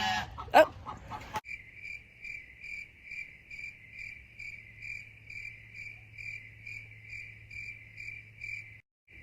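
Crickets chirping in a steady, even rhythm of about two to three chirps a second, with a faint low hum beneath. A brief knock and rustle come just before the chirping starts, and the chirping breaks off for a moment near the end.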